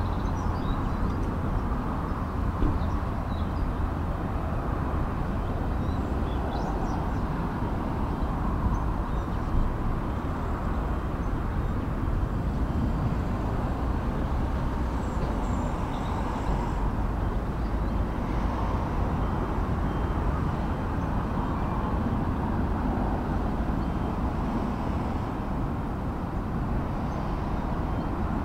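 Steady low rumble of heavy demolition-site machinery heard from a distance, with faint scattered higher clinks.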